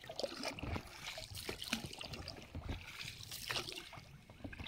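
Oars dipping and pulling through calm water from a small rowed boat: irregular splashes and water dripping off the blades, with a few low knocks.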